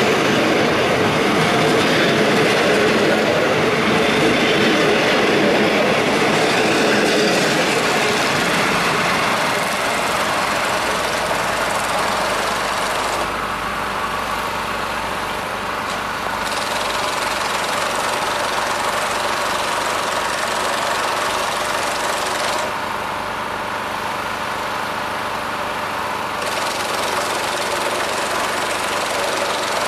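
A departing diesel-hauled passenger train. Its carriages roll past close by with the rumble and clatter of wheels on the rails, loudest for the first several seconds. The train then draws away and the sound eases to a steadier engine hum.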